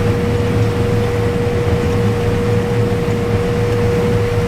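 Combine harvester running steadily while picking corn: a low engine drone with a steady high whine over it.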